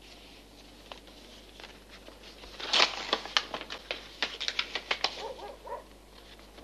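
Paper being handled: a run of sharp crinkling crackles lasting about three seconds, loudest at the start.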